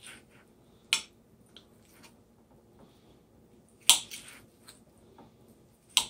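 A kitchen knife clicking against a ceramic plate while cutting cooked ham into pieces: three sharp clicks a couple of seconds apart, with faint soft cutting sounds between.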